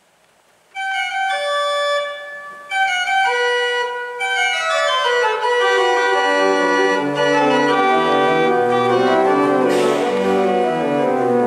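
Church organ played, starting about a second in with a high melody line; lower parts and then a bass line come in over the next few seconds until the full organ sounds.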